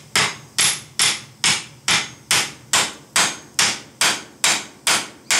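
Hand hammer striking red-hot steel flat bar clamped in a vise, a steady run of blows about two and a half a second, each with a short metallic ring, as the jaw of a pair of bolt jaw tongs is bent into shape.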